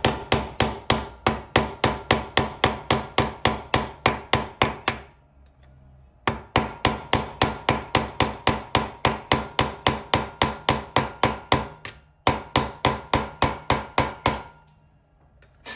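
A hammer striking a nail used as a punch against a very tight three-speed bicycle freewheel on an electric hub motor, to knock it loose: quick metal-on-metal taps, about five a second, each with a short ring. The tapping comes in three runs, with brief pauses about five and twelve seconds in, and stops near the end.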